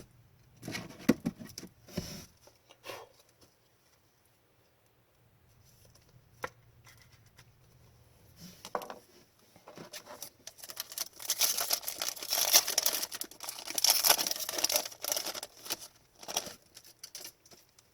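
Hockey trading cards and a foil pack wrapper being handled: a few taps and rustles in the first three seconds, then a longer stretch of rustling and crinkling from about ten to sixteen seconds in.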